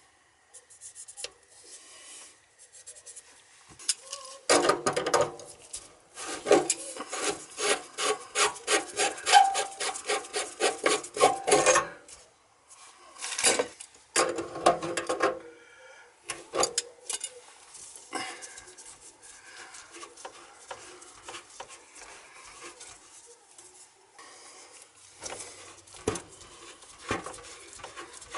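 Plastic sink-drain slip-joint fittings being worked by hand and with slip-joint pliers. A rapid rasping scrape, about five strokes a second, runs for some seven seconds from about four seconds in, with a shorter bout a little later, then light scattered clicks and knocks.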